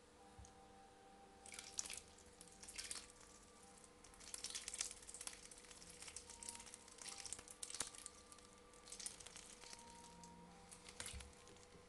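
Duckling dabbling in shallow water, snapping up floating shrimp: short bursts of wet splashing and bill clicks every second or two.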